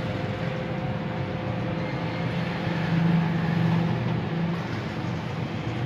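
A steady low mechanical hum with a faint constant whine, swelling slightly about three seconds in.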